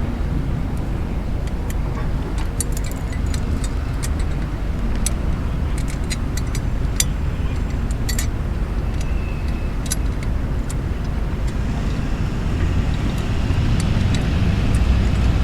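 Light metal clicks and rattles of a Snap Jack motorcycle lift stand being handled and fitted, over a steady low rumble of road traffic that grows louder near the end.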